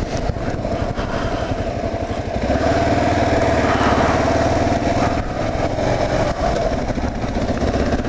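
2009 Kawasaki KLR 650's single-cylinder four-stroke engine running under way, getting louder and fuller about two and a half seconds in as the bike accelerates.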